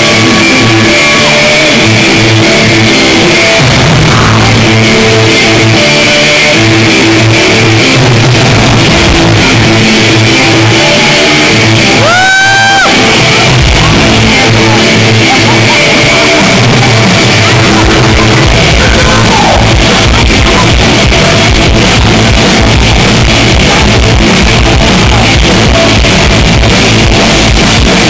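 Live rock band playing loud: electric guitars over drums, with a shouted vocal and one long held yelled note about twelve seconds in. About halfway through the drums turn to a fast, dense beat.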